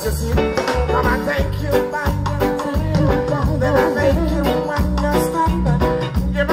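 Live reggae band playing through a concert PA, with a heavy repeating bass line and steady beat, and a male singer's voice over the music.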